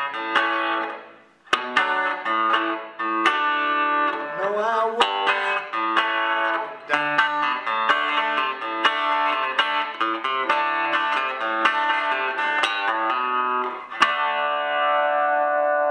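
Acoustic guitar played solo: picked notes and chords ring one into the next, with a short break about a second and a half in and notes bent upward around four to five seconds in.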